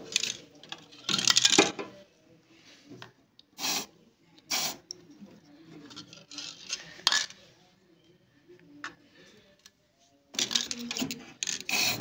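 An aerosol spray-paint can hissing in short bursts as paint is sprayed over spark-burnt spots inside a microwave oven's waveguide box. Sharp metallic clinks and knocks of the can against the oven's metal chassis come between the bursts.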